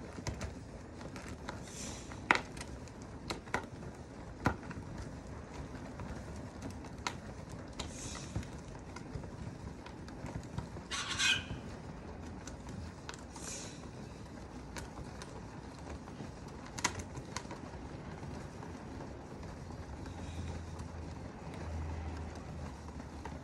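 Manual washing machine's spin dryer being turned by hand: a steady low whirring rumble with scattered sharp clicks and knocks, and a brief rattle about eleven seconds in.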